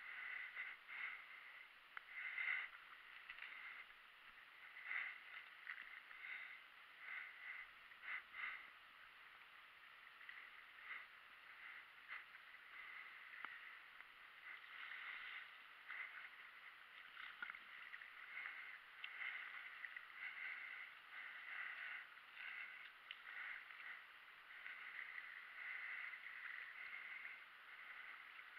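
Faint splashes and drips from a kayak paddle dipping into calm water stroke after stroke, with small irregular trickles about once or twice a second.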